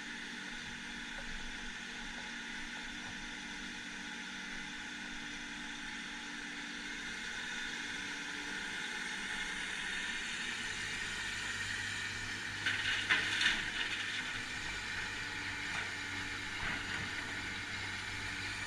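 Heavy diesel machinery engine running steadily, with a short burst of metallic clattering about two-thirds of the way through.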